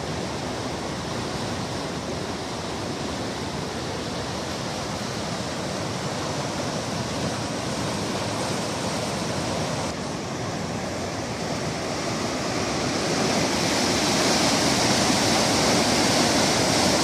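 Fast muddy floodwater rushing and churning in a canal, a steady noise of water. It grows louder about thirteen seconds in, as white water churning at a steel sluice gate comes close.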